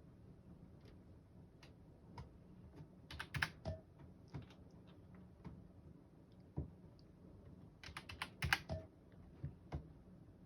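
Faint light clicks and taps, scattered, with two quick flurries of clicks about three seconds in and about eight seconds in.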